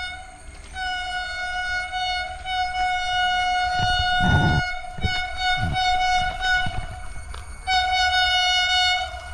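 Vande Bharat Express train horn sounding as the train approaches down the line: a short toot, then long blasts on one steady note broken by brief gaps, and a last blast near the end. Low rumbles come through in the middle.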